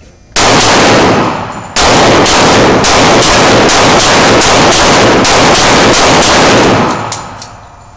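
Loud gunshots from a firearm at a shooting range. A single shot comes first, then about a second later a rapid string of about a dozen shots at roughly two to three a second, ending about a second before the end.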